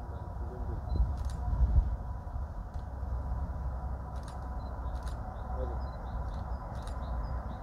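Distant low rumble of an Airbus A380's four jet engines at takeoff power as it lifts off, swelling about a second in. Birds chirp faintly over it, and a few sharp clicks come through.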